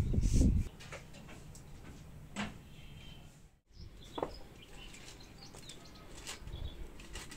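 A brief low rumble on the microphone at the start, then quiet, with a few faint clicks and paper rustles as a custard powder packet is opened and handled.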